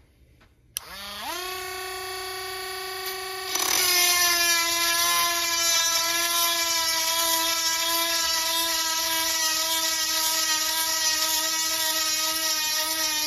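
Small handheld rotary grinder with a 7/32-inch stone switched on about a second in, its motor whine rising quickly to a steady pitch. From about three and a half seconds the stone bears on a cutter tooth of a dull chainsaw chain, adding a grinding hiss over the whine as the pitch sags slightly under the load.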